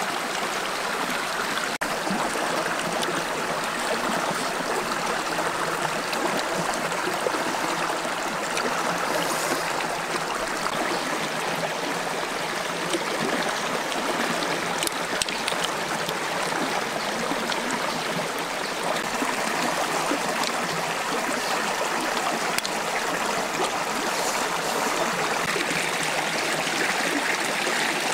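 A stream flowing: a steady, even rush of running water.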